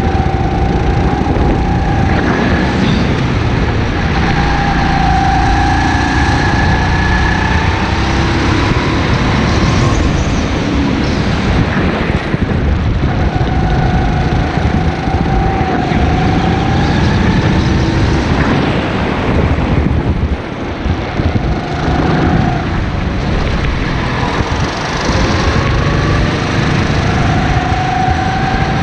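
Go-kart engine running hard on the throttle, its pitch climbing on the straights and dropping into the corners, with wind buffeting the onboard microphone. The engine backs off briefly about two-thirds of the way in.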